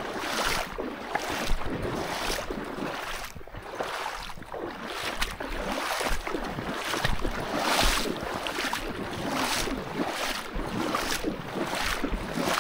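Footsteps swishing at a steady walking pace, a little over one step a second, over a continuous rushing noise.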